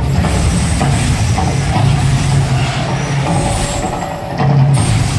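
Artificial volcano show: gas-fired flame jets whooshing in bursts over a deep, steady rumble, which dips about four seconds in and comes back louder.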